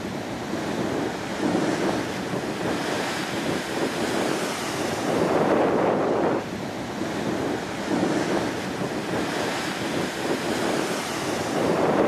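Ocean waves breaking and washing over a rock shelf, the surf swelling and falling in several surges a few seconds apart, the last as a wave bursts against the rocks. Wind buffets the microphone throughout.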